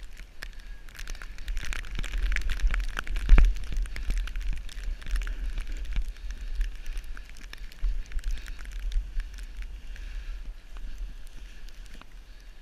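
Snowboard sliding and scraping over snow, a continuous crackling hiss with many small clicks, under a low rumble of wind buffeting the camera's microphone. A single sharp knock sounds about three and a half seconds in.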